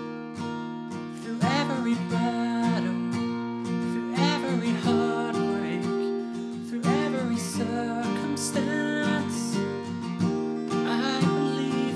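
Acoustic guitar strummed in steady chords while a man sings a slow worship song. The singing comes in about a second and a half in, in phrases over the guitar.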